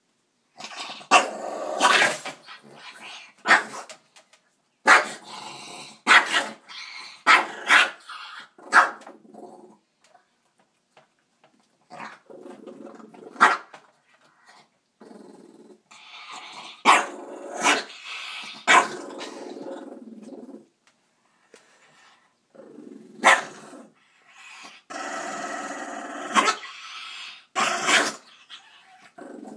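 A dog guarding its food bowl, growling and breaking into sharp barks and snarls in repeated outbursts, with two short pauses: food aggression at someone trying to take his food.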